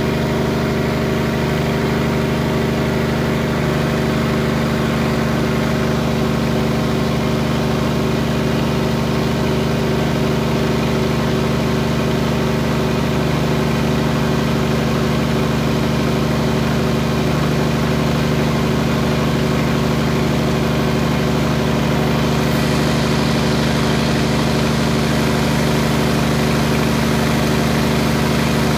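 Cummins QSZ13-G3 inline six-cylinder diesel engine driving its generator, running steadily at a governed 1500 rpm under heavy load that rises from about 58% to 77% of rating. It gives a constant engine drone that holds its pitch as the load grows, with a little more hiss about 22 seconds in.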